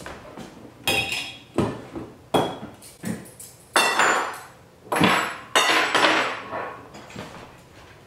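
Stainless steel pots and lids set down on a wooden table, a string of metal clanks and clinks about one a second, the loudest near the middle.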